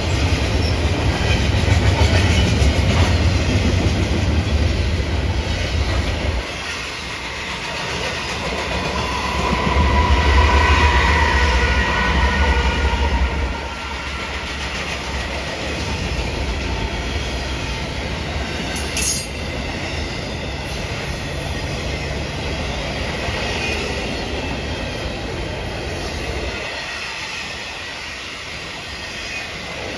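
Double-stack intermodal freight train's well cars rolling past, their wheels on the rails making a steady heavy rumble with clickety-clack. The rumble swells twice, in the first few seconds and again around ten seconds in, and a faint high wheel squeal whines briefly around ten to twelve seconds in.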